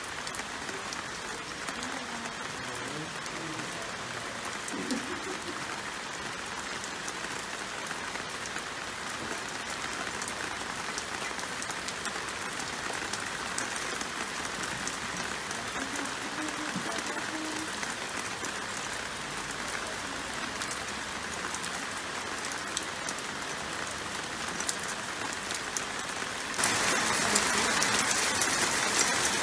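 Heavy rain pouring down steadily on a balcony and garden, with scattered sharp ticks of drops striking. Near the end it suddenly grows louder and hissier.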